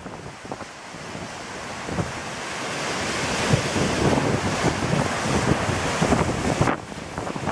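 Very strong wind buffeting the microphone over lake waves breaking against the shore. The rushing noise builds over the first few seconds, gusts in repeated surges, and falls off abruptly about a second before the end.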